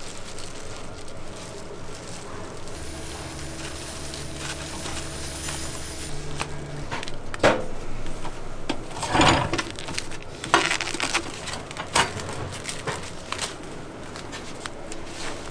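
Foam trays and plastic wrap being handled on a wooden counter: crinkling and several sharp knocks, with a rasp lasting about a second near the middle as film is pulled across a tray-wrapping machine. A low steady hum runs for about four seconds before the knocks begin.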